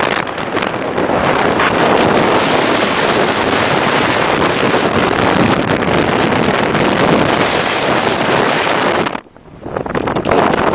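Strong blizzard wind buffeting the microphone as continuous, loud, rushing noise. Near the end it drops away briefly, then gusts back.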